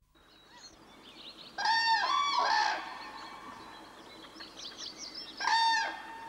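Bird calls: three short calls in quick succession about a second and a half in, each rising and falling in pitch, and one more near the end, with faint chirping in between.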